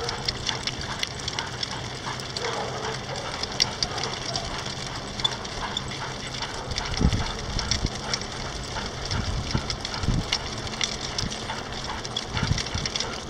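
Mini dog sulky rolling along pavement behind two trotting Bouviers des Flandres: steady rush of wheels and air with scattered light clicks and rattles, and a few dull thumps in the second half.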